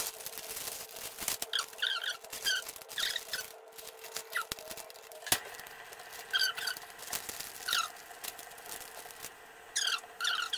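Plastic packaging crinkling and squeaking as a frozen paratha is pulled from its bag and peeled off its clear plastic sheet: scattered clicks and short squeaks, with a faint steady hum underneath.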